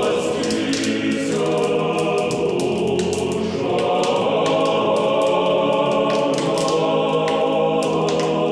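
A choir singing slow, held chords, used as the programme's closing music.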